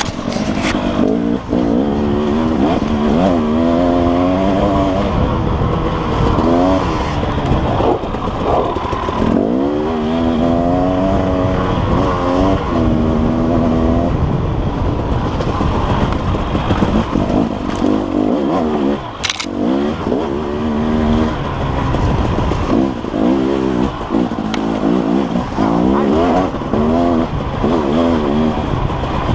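KTM dirt bike engine revving up and falling back again and again as the throttle is opened and closed on a twisting trail. A single sharp knock comes about two-thirds of the way through.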